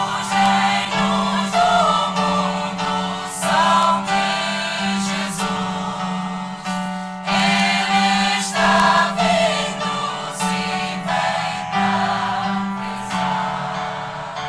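Choir singing a hymn in sustained chords, with the higher voices wavering in vibrato.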